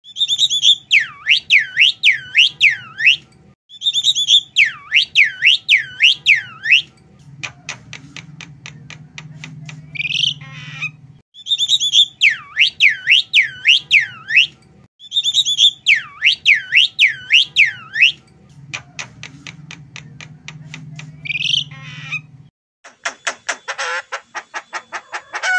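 Javan myna singing: a phrase of loud swooping whistles, about three a second, followed by a run of dry clicks, the whole phrase given twice. Near the end a faster, buzzy rattling call begins.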